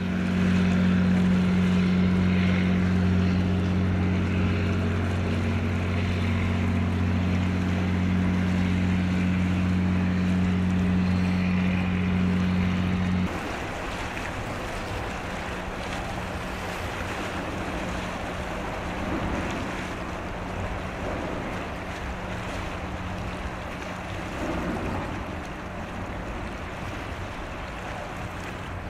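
A ship's diesel engine drones steadily across the water, a low even hum with wind and water noise around it. About halfway through, the drone drops suddenly to a much fainter hum, leaving mostly wind and lapping water.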